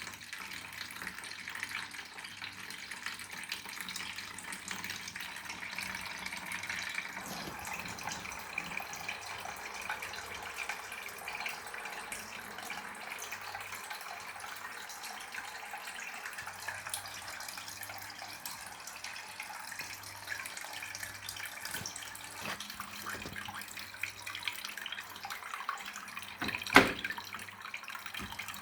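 Water running and trickling steadily, with one sharp knock near the end.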